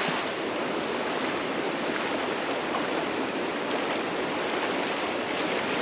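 Flowing creek water, a steady rushing noise with no breaks.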